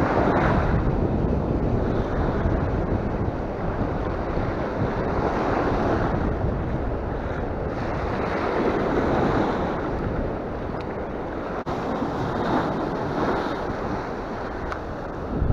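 Sea surf breaking and washing over the shore in swells every few seconds, with wind buffeting the microphone.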